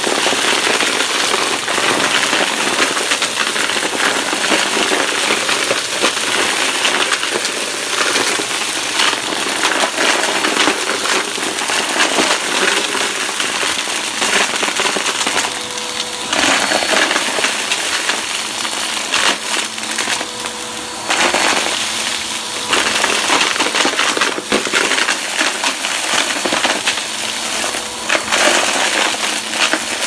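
Bissell PowerForce upright bagless vacuum running on cardboard, with a dense crackling rattle of grit, glitter and lint being sucked up through the floor head. The rattle thins out briefly about halfway through and again a few seconds later.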